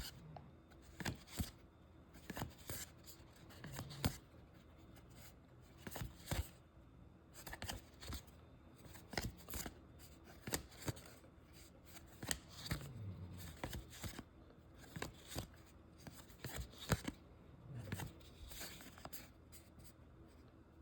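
Baseball cards being handled and flipped through: faint, irregular short slides, flicks and taps of card stock, a few each second.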